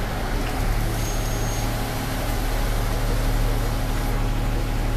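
Cabin noise of a trolley-style transit bus on the move: a steady low engine drone with road noise. A brief high-pitched tone sounds about a second in.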